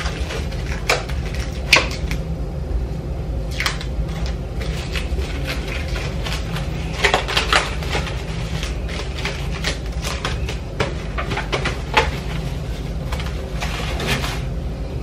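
Scattered clicks, knocks and rustles of kitchen things being handled, with a busier stretch about halfway through, over a steady low hum. Toward the end, plastic cling film is being pulled off its roll and stretched over a glass bowl.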